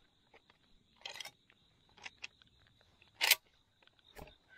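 A few sharp clicks and a short rustle close to the microphone, with the loudest, sharpest click about three seconds in, over a faint steady high-pitched tone.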